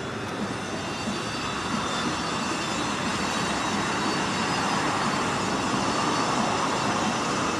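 Steady engine noise with a high whine, slowly growing louder.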